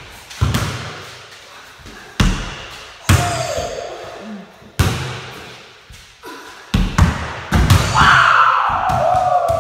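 Basketballs bouncing on a hard floor and banging off a small backboard, rim and wooden walls: about ten separate sharp thuds and bangs, each ringing briefly in the room. Near the end a loud, long sound slides down in pitch.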